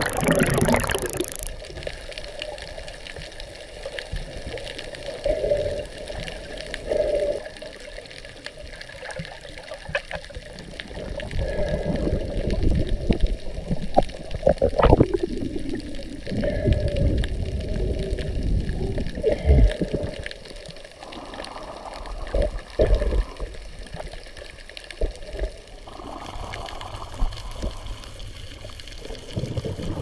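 Water recorded underwater: irregular bubbling and sloshing with low rumbles, its character shifting abruptly a couple of times.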